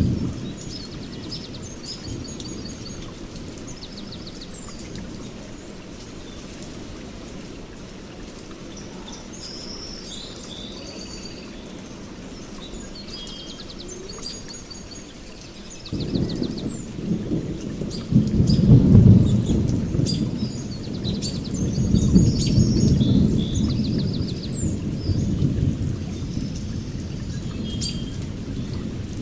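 Steady rain with birds chirping. About halfway through a long, low rumble of thunder builds, peaks twice, then fades but stays present.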